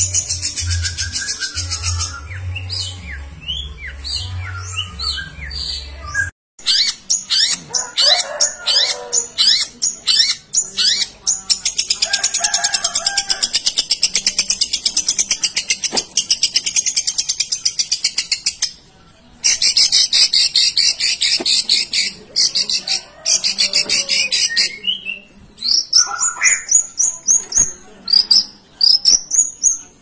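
Long-tailed shrike singing a fast, almost unbroken stream of high chattering trills and whistles, a song packed with mimicked calls of other birds. A low musical beat plays under it for the first six seconds, and near the end the song turns to a run of short repeated whistles.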